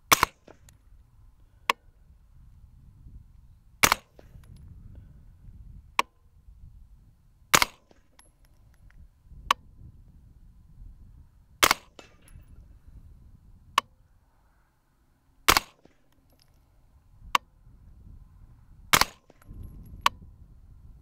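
Integrally suppressed 9mm short-barrelled rifle (Spikes Tactical Brown Recluse) firing six slow, single aimed shots about four seconds apart, each a sharp crack. Each shot is followed about two seconds later by a fainter, short crack.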